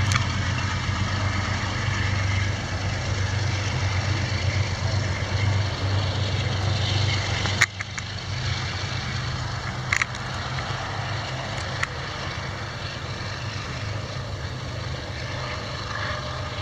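Amtrak passenger train pulling away: the steady low rumble of its diesel locomotive and wheels on the rails, slowly fading as it recedes, with three short sharp clicks along the way.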